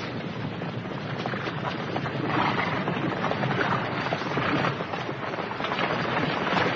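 Sound effect of a troop of horses at the gallop, a dense clatter of hoofbeats growing louder as the mounted men approach.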